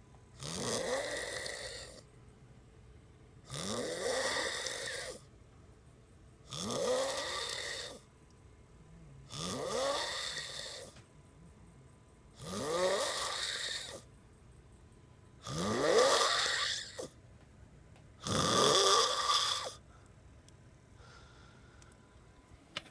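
A sleeper snoring: seven long snores about every three seconds, each rising in pitch, with quiet breaths in between.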